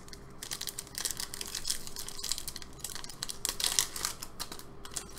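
Foil trading-card booster pack wrapper crinkling and tearing as it is pulled open by hand: a run of irregular crinkles and crackles.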